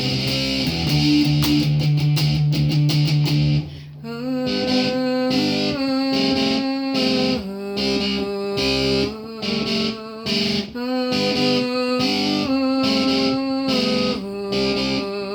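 Instrumental break of a pop-rock song led by guitars. About four seconds in the music drops to a rhythmic, repeated picked electric guitar figure.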